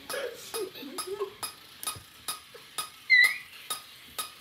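Rapid, evenly spaced clicking, about three to four clicks a second, with a short, loud rising squeak about three seconds in.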